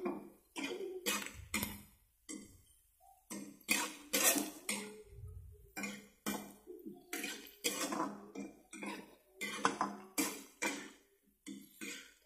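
Metal spatula scraping and knocking against a wok in quick, irregular strokes while stir-frying.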